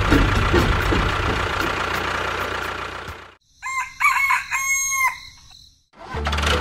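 A steady mechanical running noise fades out about three seconds in. After a short silence a rooster crows, cock-a-doodle-doo, and the running noise starts again near the end.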